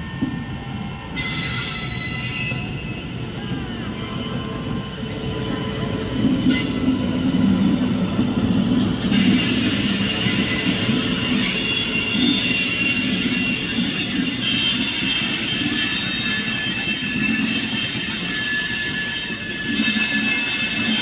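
A departing express train's wheels squealing and grinding loudly against the rails in several high-pitched tones over a low rolling rumble, as WAP-7-hauled LHB coaches move slowly past. The squeal starts about a second in and grows stronger about nine seconds in.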